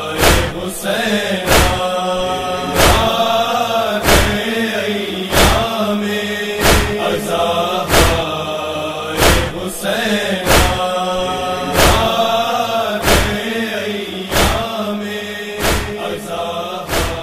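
A male voice chanting a Muharram nauha, a lament for Imam Husain, in long drawn-out phrases. A loud, steady beat keeps time about once every 1.3 seconds.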